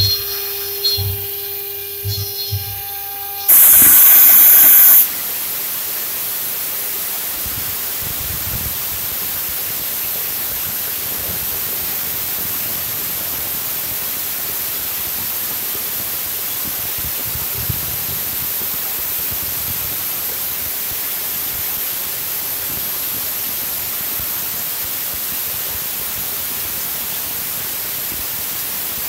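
A 1325 wood CNC router's spindle runs with a steady whine while the bit routes letters into an MDF board. About three and a half seconds in there is a very loud burst of noise lasting over a second. After it comes a steady hiss-like noise, with the spindle's tone faint beneath it.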